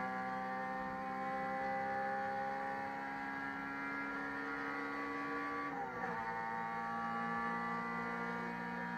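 Four-cylinder engine of an EG-chassis Honda race car heard from inside the cabin, running hard at high revs. Its pitch climbs slowly, then dips sharply about six seconds in before holding steady.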